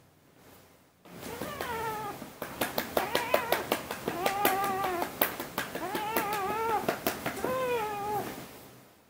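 A cat meowing several times, long drawn-out meows that rise and fall in pitch. A quick run of sharp clicks or taps sounds among the middle meows.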